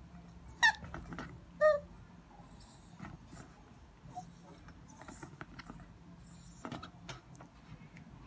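Puppy whimpering and whining. It gives two short cries that fall in pitch, then several short, very high-pitched whines.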